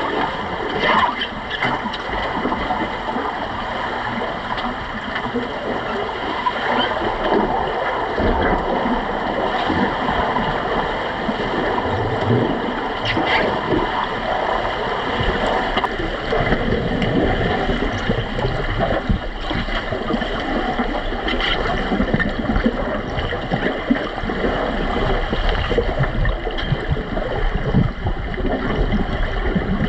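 Pool water heard underwater, churned by finned swimmers: a steady rushing, bubbling noise with a few scattered sharp clicks and knocks.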